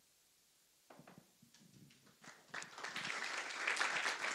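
Audience applause. After a near-silent first second, scattered claps start and build into steady clapping from about two seconds in.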